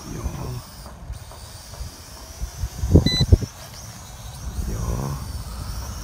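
High, wavering whine of a small X3 Pioneer multicopter's motors and propellers flying overhead, its pitch shifting as the motors adjust. Wind buffets the microphone in low rumbles, hardest about three seconds in.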